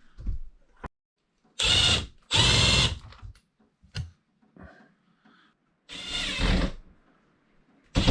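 Power drill run in three short bursts, each about half a second, with light knocks and clicks between them.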